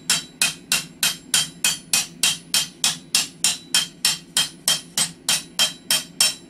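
Hammer striking hot knife steel on an anvil in rapid, even blows, nearly four a second, each a sharp metallic ring. The blows are peening a decorative hammered texture into the flat of a nakiri blade.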